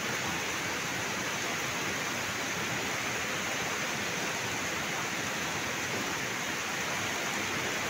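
Floodwater rushing in a fast, muddy torrent over open ground, a steady even rush of water, with heavy rain falling.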